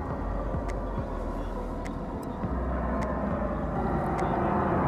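Jet airliner flying low overhead on its landing approach: a steady engine rumble that swells louder over the last couple of seconds.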